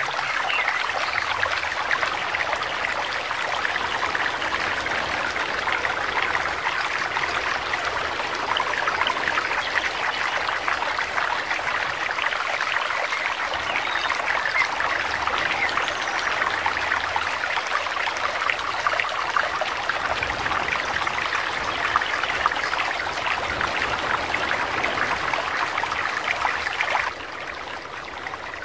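Mountain stream cascading over rocks in a small waterfall: a steady rush of water, much quieter for the last second or so.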